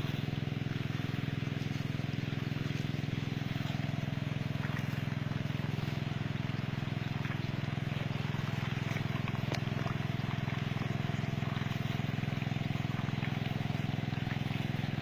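Small engine running steadily at a constant speed, the motor pump driving the irrigation system.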